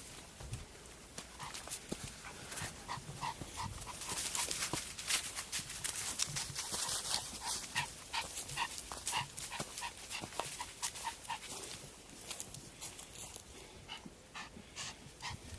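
Small Maltese dog panting rapidly while hiking uphill, over a steady run of sharp clicks and scuffs from footsteps on the trail, densest through the middle.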